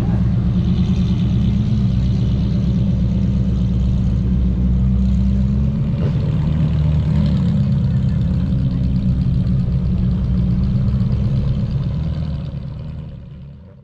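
Sports car engine running at low, steady revs, with a slight rise and fall in pitch about halfway through, then fading out near the end.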